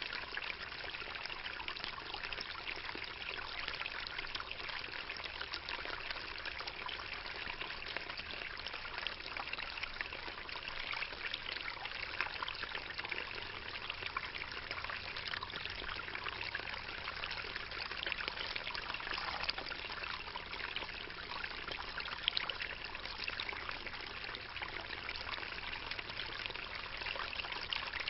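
Water trickling and bubbling steadily in a tub of koi.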